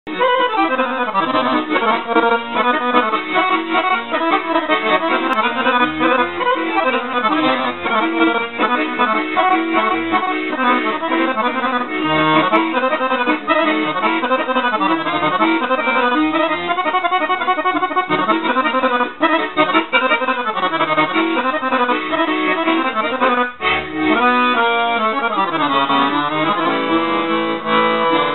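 Chromatic button accordion played solo: a fast, busy melody of quick runs over sustained chords, with a short break in the phrase about two-thirds of the way through.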